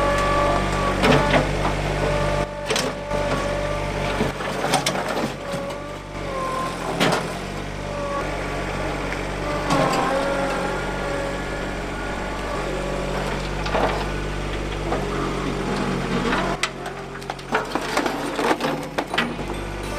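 Skid steer engine running steadily, its pitch and load shifting a few times, with scattered sharp knocks and clanks.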